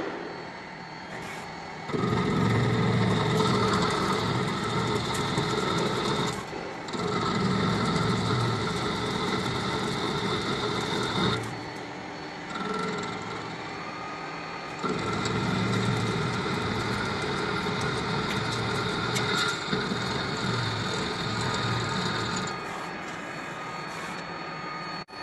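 Small CNC lathe running, its spindle and drives giving a steady mechanical whine. It starts up about two seconds in, cuts out briefly twice, and drops to a quieter hum near the end.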